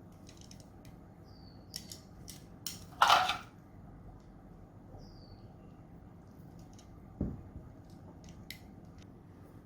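Kitchen utensils and dishes being handled: scattered light clicks and taps, a brief louder scrape about three seconds in and a dull thump about seven seconds in.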